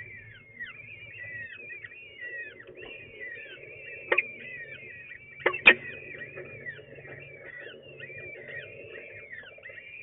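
Peregrine falcon chicks cheeping without pause while the adult feeds them, a rapid run of short high calls, many falling in pitch. A few sharp clicks stand out about four and five and a half seconds in.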